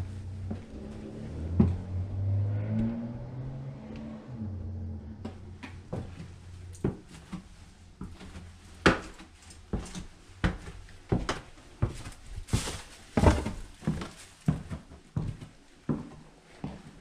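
Footsteps on a hard floor, about two steps a second, starting about five seconds in and going on to the end. Before them there is a low rumble.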